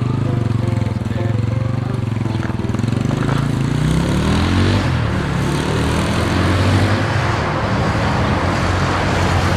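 A Yamaha Scorpio Z's single-cylinder four-stroke engine runs, rising in pitch about four seconds in as the motorcycle accelerates away, then settling to a steady run.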